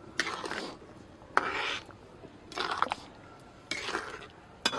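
A spoon stirring thick gravy in a cooking pot, with four scraping strokes about a second apart.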